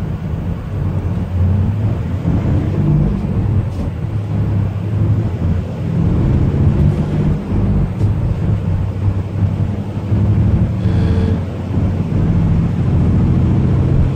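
The Euro 6 H325 diesel engine of a 2015 Hyundai Unicity coach running, heard from inside the passenger cabin as the coach drives. Its low drone rises and falls in pitch several times. A short high tone sounds about eleven seconds in.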